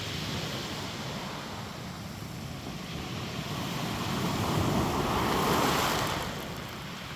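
Sea waves washing onto the shore, with wind blowing across the microphone; one wave swells up and washes in, loudest about five and a half seconds in, then falls away.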